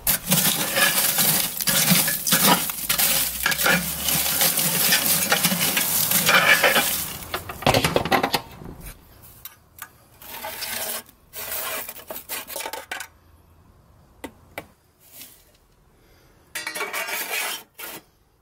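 Leftover lump charcoal rattling and clinking as it is stirred around in a Kamado Joe ceramic grill's firebox to knock the ash off. This runs without a break for about the first eight seconds. Then come shorter bursts of scraping with quiet gaps, as ash is cleared out of the ash collector at the bottom of the grill.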